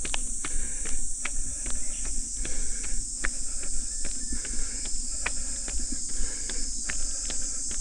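Steady high-pitched drone of a summer cicada chorus, with a runner's footsteps on the trail landing about two to three times a second.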